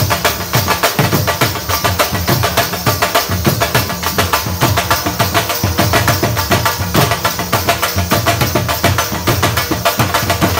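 Dhol drumming a fast, steady dhamal rhythm: deep bass strokes under quick, sharp stick clicks, without a break.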